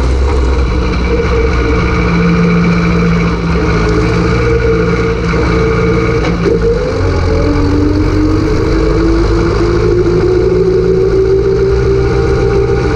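Zetor 4011 tractor's four-cylinder diesel engine running hard as the tractor is driven. About halfway through, its pitch dips, then climbs steadily as it picks up revs again.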